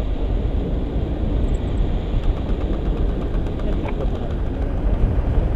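Wind rushing over the microphone of a camera held out on a pole during a tandem paraglider flight: a loud, steady, low rumbling noise, with a small tick about four seconds in.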